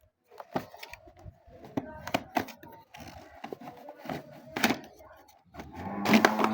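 A run of sharp clicks and knocks, like hands handling a toy and its packaging. About six seconds in, a loud, steady, low-pitched tone starts.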